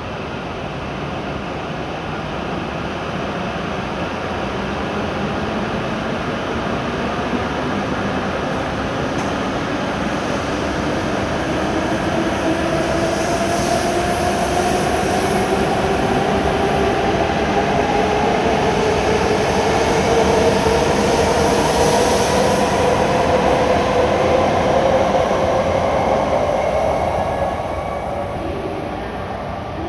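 E7-series Shinkansen trainset pulling out of the station, its traction motors whining in two tones that rise steadily in pitch as it gathers speed, over the rumble of the passing coaches. The sound grows louder, then drops away near the end.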